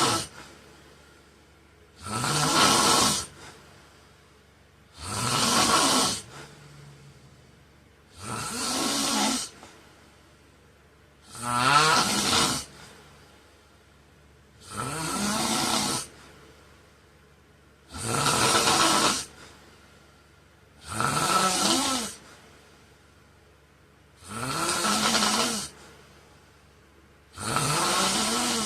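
A man snoring loudly in his sleep: about ten snores, each lasting about a second, in a steady rhythm of one every three seconds or so.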